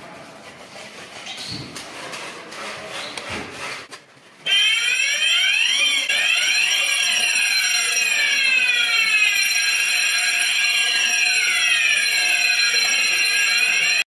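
A few faint clicks and handling noise as a break-glass manual call point is operated with its test key, then about four and a half seconds in the fire alarm system sounds: several electronic sirens whooping up and down in pitch over a steady high ringing, the alarm set off by testing the call point.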